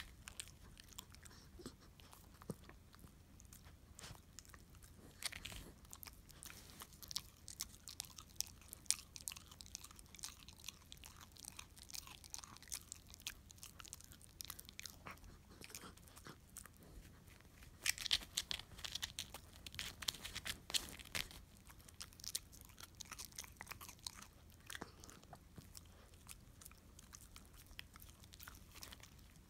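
A dog gnawing a bone with its side teeth: irregular crunches and clicks of teeth on bone, with a busier run of crunching about two-thirds of the way through.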